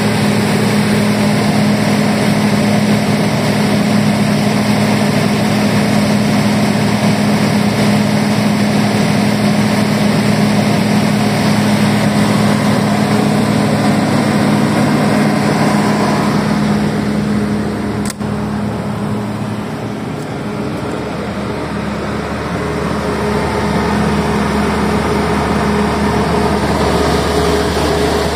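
FG Wilson 200 kVA diesel generator set running steadily at its governed 1500 rpm (50 Hz output), a constant low engine drone. A little past halfway the sound dips and changes tone for a few seconds, with one sharp click, before settling back to a steady hum.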